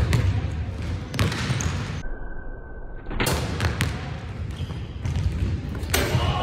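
A basketball bouncing on a hardwood gym floor: a few separate sharp thuds, spaced a second or more apart, over the low room noise of a large gym.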